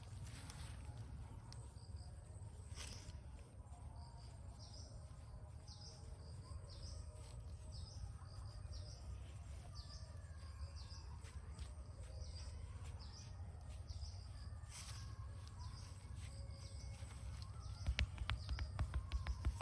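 Birds chirping repeatedly over a steady low rumble. Near the end comes a fast run of sharp slaps: hands tapping on the head in a percussive head massage.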